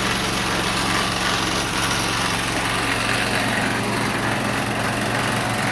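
1978 John Deere 208 garden tractor's single-cylinder Kohler engine running steadily.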